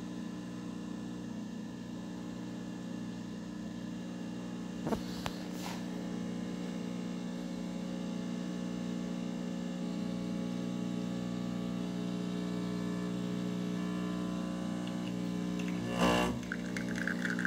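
Vibratory pump of a Rocket Giotto Premium Plus V2 espresso machine humming steadily through a shot, with a couple of faint clicks about five seconds in and a knock near the end. The machine has the fault the owner describes: brew pressure spikes to about 8 bar, then drops back to about 4 bar every few seconds.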